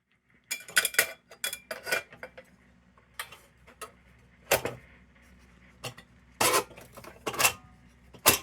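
Sharp metallic clinks and clanks of a tin kerosene lantern and its glass globe being handled and fitted together. About a dozen separate knocks, several in quick succession in the first two seconds and then one every second or so.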